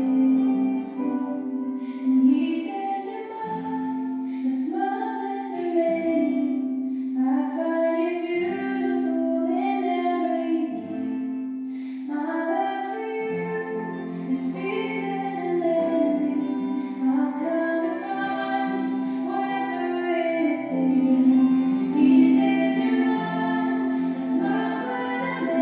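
Slow music: a woman's voice singing a melody over a steady held low note in the accompaniment.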